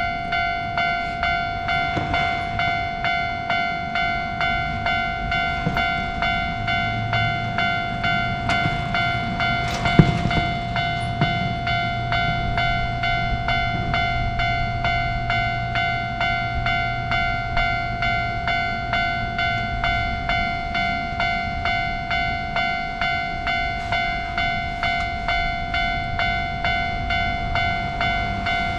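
Japanese level-crossing alarm bell ringing steadily, about one and a half strikes a second. A low steady hum joins it for about thirteen seconds in the middle, and there is a sharp click about ten seconds in.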